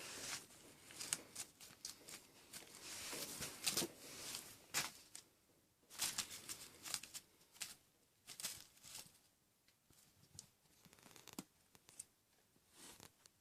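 Kittens scrabbling during play: irregular scratchy rustling and sharp clicks, dense for the first nine seconds or so, then only a few scattered ones.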